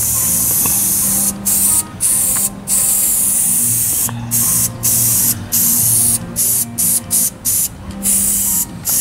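Aerosol can of clear coat spraying in a run of hissing bursts, one after another with short breaks; the bursts get shorter and quicker in the second half.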